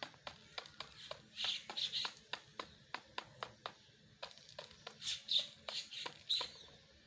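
Peacock's beak pecking grain from a plastic tub: a steady run of sharp clicks, about three to four a second. Twice, around a couple of seconds in and again after five seconds, brief higher-pitched sounds come in over the clicks and are the loudest moments.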